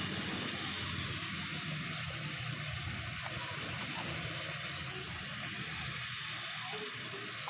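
Chicken adobo simmering in a wok: a steady bubbling sizzle of the sauce over a constant low hum.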